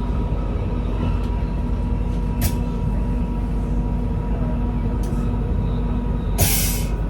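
Passenger train running, heard from inside the carriage: a steady rumble with a constant hum, a small click about two and a half seconds in and a short hiss about six and a half seconds in.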